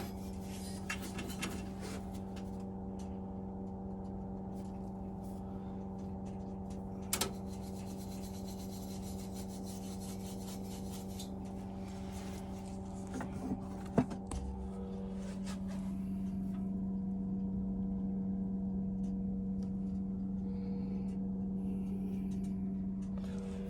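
Metal boiler parts being handled and slid about, with intermittent rubbing, scraping and a few sharp clicks, the loudest about 14 seconds in. A steady low electrical hum underlies it and grows a little louder in the second half.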